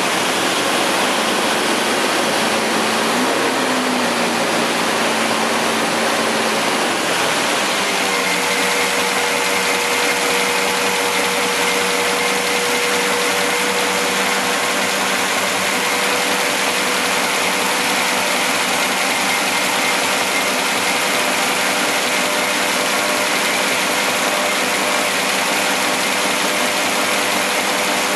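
Freshly rebuilt Studebaker 289 V8 running just after its first start on the choke. Its pitch shifts over the first several seconds while the carburetor is worked, then it settles into a steady idle.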